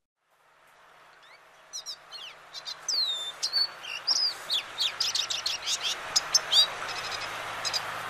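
Recorded song of a lesser goldfinch: a rapid, jumbled run of high chirps, down-slurred notes and trills, described as wheezes, trills and stutters. It starts about a second and a half in, over a faint hiss from the recording.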